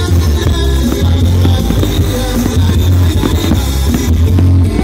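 Loud music with a heavy, steady bass line.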